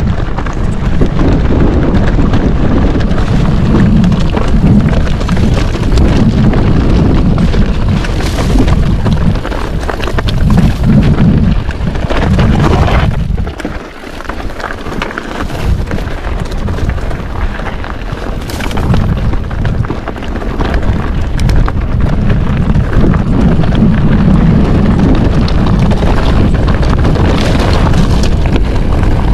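Wind buffeting a GoPro's microphone as a mountain bike descends a rough trail, a heavy low rumble mixed with tyre noise and rattling over rocks. It eases briefly about halfway through.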